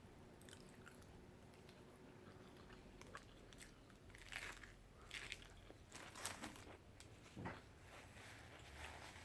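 Faint close-up chewing and biting: scattered short crunches and mouth clicks of food being eaten, mostly in the middle of the stretch.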